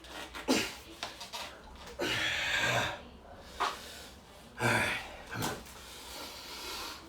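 A man breathing hard with the strain of thumbing a tight tubeless tire bead onto a rim by hand: several loud, forceful breaths and grunts, the longest one a little under a second, starting about two seconds in.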